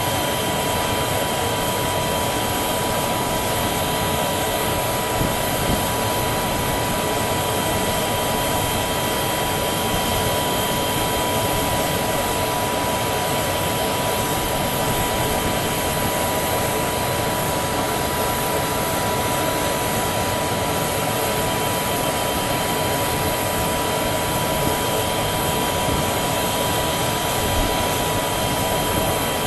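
Aircraft turbine running steadily: a constant rushing noise with a steady high-pitched whine on top.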